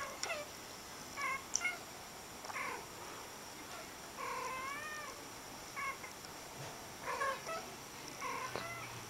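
Two cats trading short meows and chirps back and forth, played from a video, with one longer wavering meow about four seconds in.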